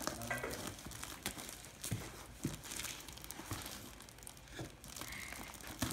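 Hands picking and tearing at plastic packing tape and cardboard on a sealed parcel: crinkling and tearing with scattered short clicks and scrapes.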